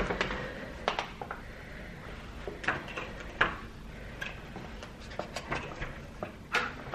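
Scattered light knocks and clicks with some rustling of handling, a few seconds apart over faint room hiss, the sharpest knock near the end.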